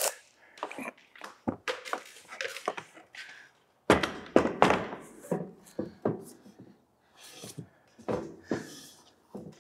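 Pelican 1750 hard plastic case being lifted and set down onto a metal roof rack: a run of knocks and thunks, loudest about four seconds in, as the case is lowered and seated on the rack's bolts.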